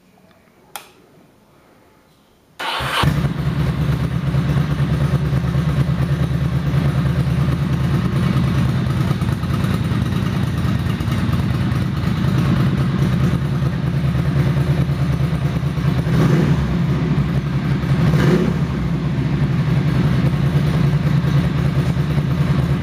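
Ducati S2R800's air-cooled 803 cc L-twin starting on the electric starter. A click comes about a second in, and the engine catches about two and a half seconds in. It then runs at a steady, loud idle, with two brief rises in revs near the end.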